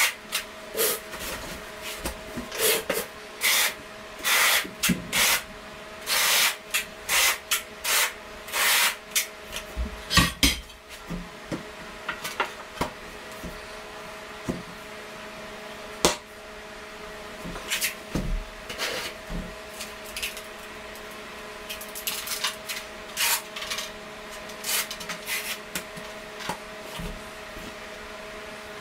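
A trowel scraping thinset mortar across the floor in a quick run of short strokes that thins out about halfway. Then come occasional light knocks and rubs as a floor tile is pressed into place. A faint steady hum runs underneath.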